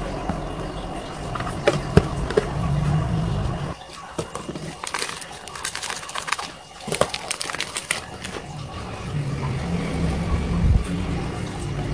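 Small plastic tea-bag pouch crinkling and crackling as it is handled and opened, with a run of sharp crackles in the middle. A few clicks from paper cups being set down come earlier, over a steady low background rumble.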